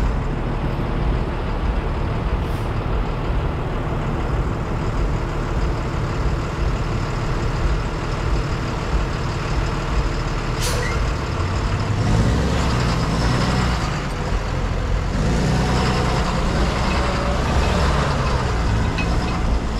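Diesel engine of a box truck idling close by, a steady low hum. There is a short sharp burst of noise about ten seconds in, and from about twelve seconds the engine grows louder and shifts in pitch as the truck pulls away from the light.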